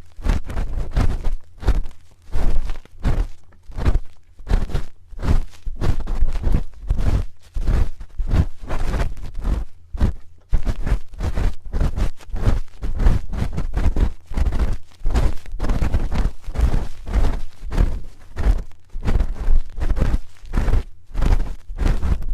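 Spoon rubbing and scraping on the microphone's ear in ASMR ear cleaning: an unbroken run of irregular strokes, one or two a second, each with a heavy muffled thump and a scratchy edge.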